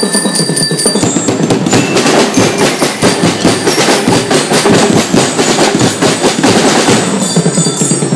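Drum and lyre corps playing: drums beating a quick, dense rhythm with bell lyres ringing over it.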